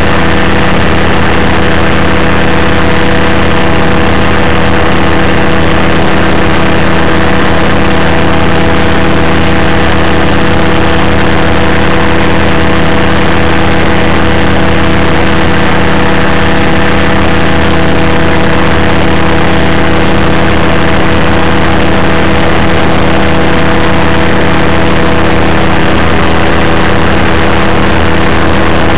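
Rotec Rally 2B ultralight's engine and propeller running loud and steady at constant power in flight, with air rushing past the microphone.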